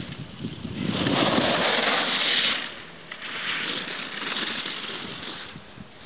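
Ski edges hissing and scraping on packed snow as a giant slalom racer carves two turns past, the first loud and close, the second fainter, with low rumbling wind on the microphone.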